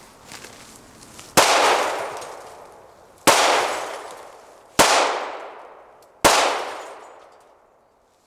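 Remington 870 12-gauge pump-action shotgun fired four times, about one and a half to two seconds apart. Each shot is loud, with a long echo that fades away.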